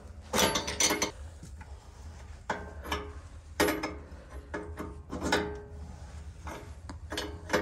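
Metal wrench clinking and scraping against the brass fittings of a propane bypass valve tee as the fitting is tightened onto an RV propane tank's regulator. The clicks and scrapes are irregular, and some ring briefly.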